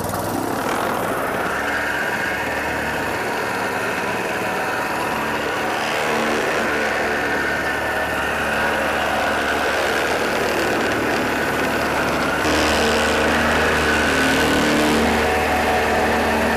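Vibratory plate compactor with a small gas engine running with its throttle turned up from low; the engine and the shaking plate run steadily, growing louder in steps, most sharply about twelve seconds in.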